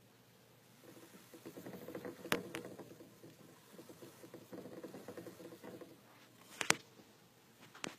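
Dwarf hamster running in a plastic exercise wheel: rapid pattering of its feet and the rattling wheel in two spells, with a sharp click a little over two seconds in and a louder one near the end.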